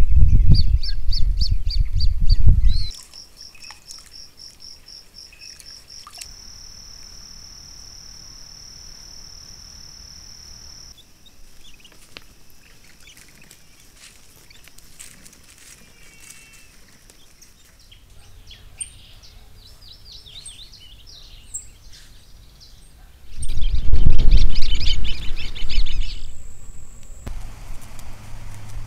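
Trail-camera audio over several clips. It opens with a low rumble of wind on the microphone and rapid repeated high bird call notes. A steady high-pitched tone follows, then a quiet stretch with faint scattered chirps. Near the end a second burst of low rumble comes with pulsing high chirps.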